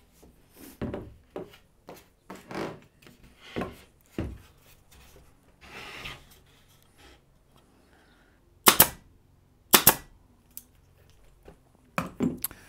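Plywood panels knocking and scraping on a wooden workbench as they are stood up and held in place. There are scattered knocks early on, then two sharp loud knocks about a second apart around nine seconds in, then a few more knocks near the end.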